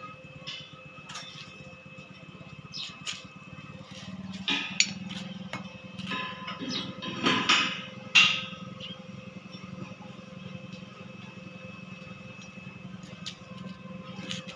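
Scattered metal knocks and taps from hand work on a galvanized steel pipe frame, over a steady low machine hum. The louder knocks come about four and a half, seven and eight seconds in.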